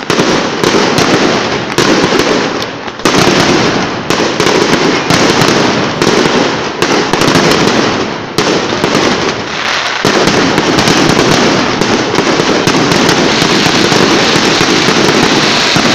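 Aerial fireworks display heard through a phone's microphone: shells bursting in quick succession, with sharp bangs several a second over continuous crackling. From about ten seconds in it merges into a dense, unbroken crackle.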